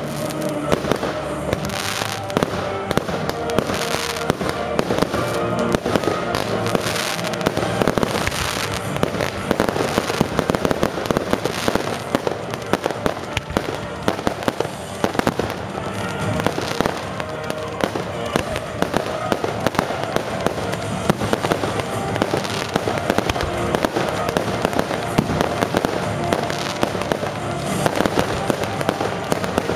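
Aerial firework shells bursting in quick succession, a dense run of bangs and crackles, with music playing underneath.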